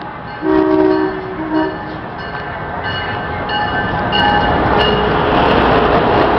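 Amtrak train's horn sounding a long chord blast and then a short one, followed by a few fainter short toots, as the rush of the train grows louder on its approach and pass.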